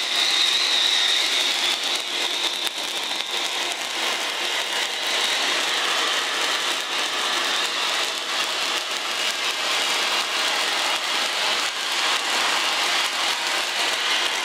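MASA cold pyro spark fountain spraying sparks upward with a steady hiss and fine crackle. A high whistling edge in the first few seconds fades out.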